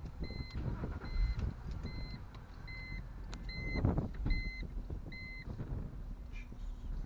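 A car's electronic warning beeper sounding a short, high single-tone beep about every 0.8 seconds, seven times in all, stopping about five and a half seconds in, over low engine and road rumble as the car moves off. A louder thump comes about four seconds in.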